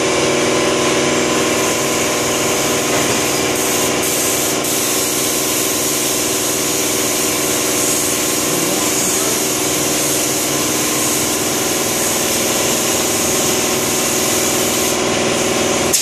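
Compressed-air paint spray gun hissing steadily as it sprays paint onto an alloy wheel, over a steady machine hum.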